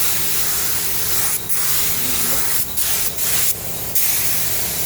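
Compressed-air paint spray gun hissing as it sprays primer onto a car body. The spray cuts out briefly a few times between passes, once for about half a second near the end.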